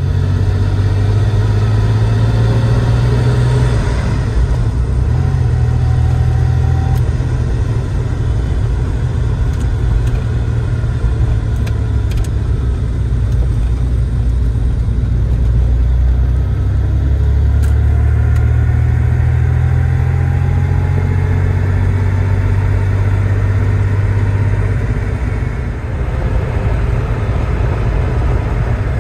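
1988 Porsche 911 Turbo (930) driving, heard from inside the cabin: its turbocharged flat-six engine and road noise make a steady deep rumble, with the engine note rising under acceleration twice.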